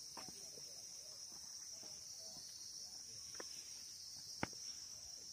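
Insects droning steadily at a high pitch, with one sharp click about four and a half seconds in.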